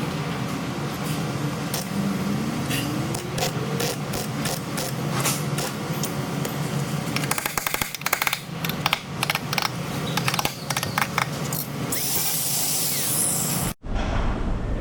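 Car body repair work: many sharp metal knocks and clicks from tools, including a run of rapid, even knocking, over a low steady hum. Near the end a hiss comes in, then the sound cuts off abruptly.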